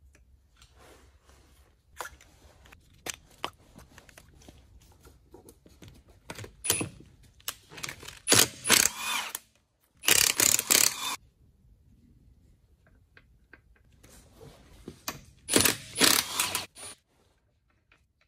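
Cordless brushless impact wrench hammering wheel bolts loose in several short runs of about a second each, with small clicks and scrapes of tools on the alloy wheel between them.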